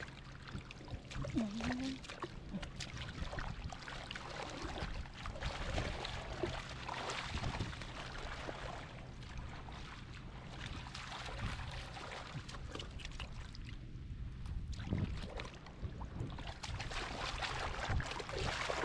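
Irregular sloshing and splashing of shallow muddy water as hands grope through the mud for fish.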